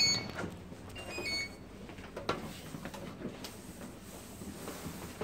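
Room door being opened and handled: a string of clicks and knocks from the latch and door, with a few short high-pitched chirps in the first second and a half and a sharp knock at the end.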